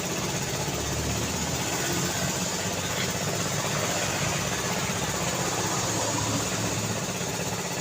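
Street traffic: vehicle engines running and idling with a steady low hum under the general road noise.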